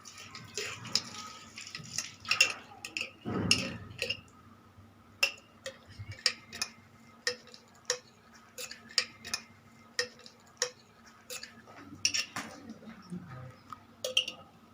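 Metal utensils clinking: a spoon tapping and scraping against metal pots in quick, irregular clinks as ghee is spooned into an iron kadhai, with a duller knock about three and a half seconds in.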